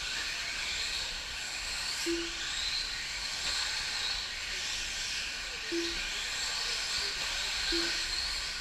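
Several electric off-road RC buggies racing on a dirt track: a steady hiss of high-pitched motor whine and tyre noise. Three short beeps a couple of seconds apart, of the kind a lap-counting system gives as a car crosses the line.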